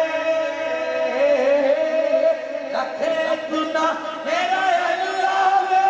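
A man singing a Punjabi naat into a microphone, his melody wavering and ornamented, over a steady held drone tone.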